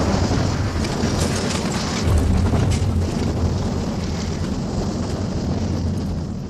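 Loud low rumble of a car-bomb explosion and the burning wreck, with crackles of falling debris. It swells again about two seconds in, then slowly dies away near the end.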